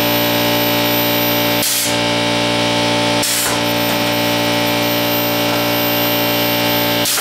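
Pneumatic can crusher cycling, its air cylinder letting out three short loud hisses of compressed air, the last near the end, over a steady hum.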